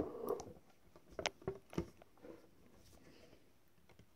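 Fabric rustling, then a few small sharp metal clicks, as a snap button and cloth are fitted onto the die of a hand-lever snap press.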